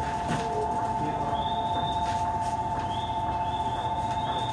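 Station platform departure bell ringing steadily, two fixed tones with a fast rattle, signalling that the train is about to leave.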